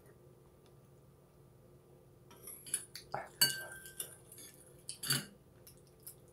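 Metal spoon clinking against a soup bowl several times, one clink ringing briefly, in a burst a little past the middle. Before it there is only faint room tone.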